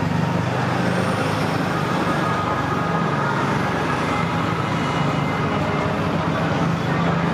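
A motor vehicle's engine running steadily with a low, even hum, over street traffic noise.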